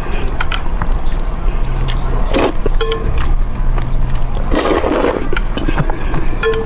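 Close-miked eating of spicy fire noodles: wet mouth clicks and chewing, with two longer slurps, one about two and a half seconds in and one around five seconds in, over a steady low rumble.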